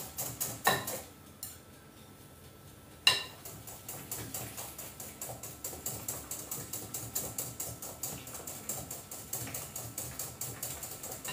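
Hand wire whisk beating a mixture in a bowl in quick, regular strokes that clink against the bowl, as sugar is added a little at a time. A pause of about two seconds near the start ends with a single sharp knock, then the whisking runs on steadily.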